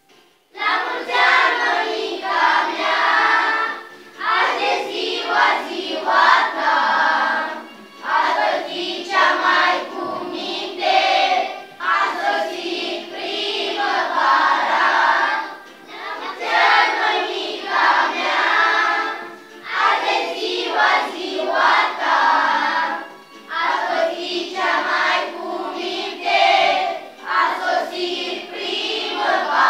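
A class of young children singing a song together as a group, in phrases of a few seconds each with short breaks between them.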